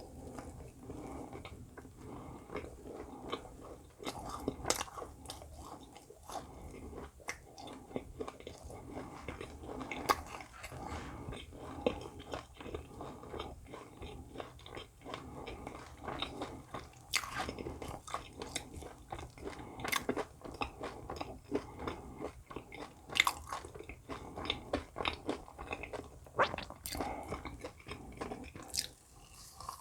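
A person chewing and biting food close to the microphone: continuous wet chewing with many sharp crunches and clicks through the whole stretch.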